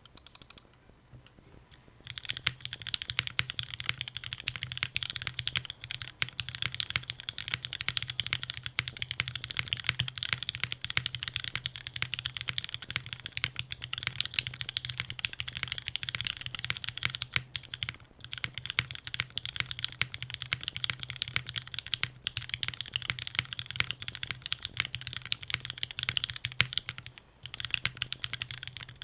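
Typing on a Vertex Arc60 mechanical keyboard with lubed and filmed Cherry MX Black Hyperglide linear switches, an aluminium plate and ABS double-shot keycaps. Fast, continuous keystrokes start about two seconds in and pause briefly a few times.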